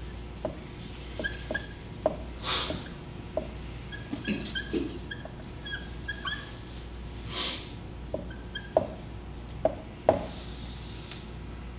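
Dry-erase marker squeaking and tapping on a whiteboard as Arabic letters are written: many short squeaky chirps and light taps, with two longer scratchy strokes.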